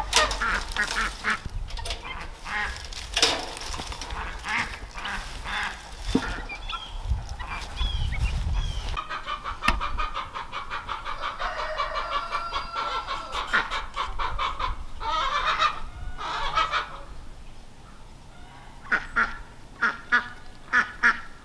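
A flock of Indian Runner ducks quacking over and over, with a quick run of loud quacks near the end.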